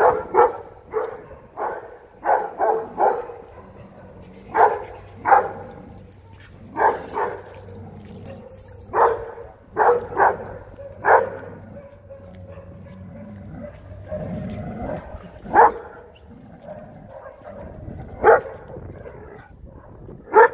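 Anatolian shepherd dog barking: loud single barks and quick runs of two or three, crowded together in the first half, then single barks a few seconds apart. It is barking at other dogs.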